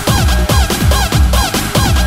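Electronic dance music: a fast DJ remix with a steady, driving kick drum and repeated short synth stabs that slide down in pitch.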